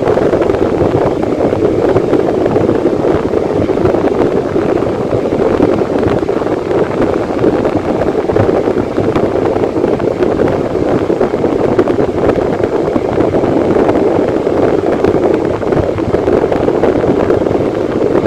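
Electric fan running at a steady speed, a constant even rush of air with no changes.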